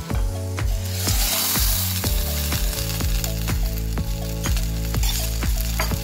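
Boiled chickpeas tipped into a hot pot of frying onions, sizzling as they hit the fat about a second in, then stirred with a wooden spoon. Background music with a steady beat runs throughout and is the loudest sound.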